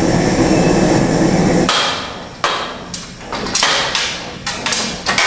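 Cartridge gas blowtorch running with a steady rushing hiss for about the first second and a half, heating soldered copper pipe joints. Then comes a series of sharp knocks and clanks, about six in three seconds, as the copper pipe is worked loose.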